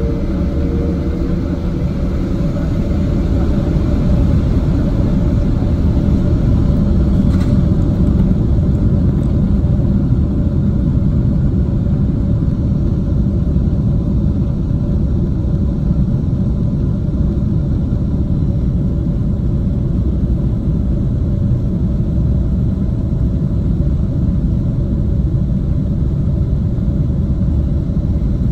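Jet airliner heard from inside the cabin beside the wing: a steady engine drone over the low rumble of the wheels rolling on the runway, growing a little louder over the first few seconds and then holding.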